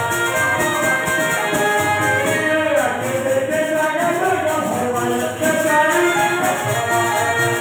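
Live Chhattisgarhi devotional bhajan music: harmonium and keyboard sustaining the melody over a hand drum and a steady jingling percussion rhythm. A voice sings a gliding line through the middle.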